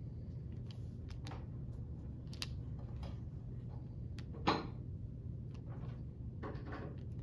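Pencil scratching on paper in short, scattered strokes, with a sharper, louder stroke about four and a half seconds in and a longer run of scratching near the end, over a steady low room hum.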